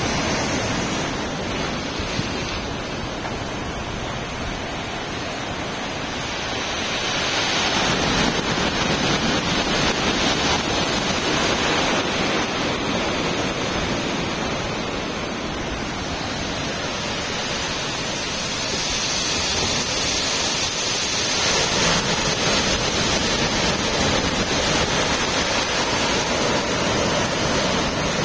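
Rough surf driven by an approaching typhoon, a continuous roar of breaking waves with wind buffeting the microphone. The roar swells about a quarter of the way in and again about three-quarters through.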